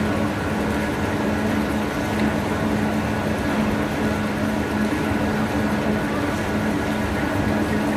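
Steady drone of running factory machinery: an even low hum with a few constant tones over a rushing noise.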